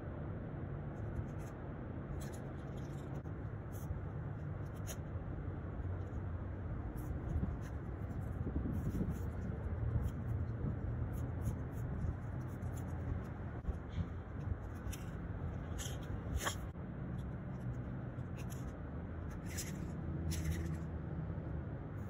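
Aerosol spray-paint can hissing in many short bursts as it is sprayed onto a wall, over a steady low background rumble.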